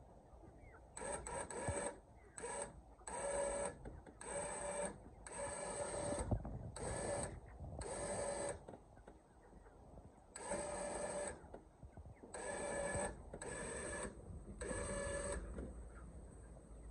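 Warn electric winch on an ATV log-trailer crane running in about eleven short spurts of motor whine, jogged on and off by its corded remote while it hauls a chicken coop along the ground.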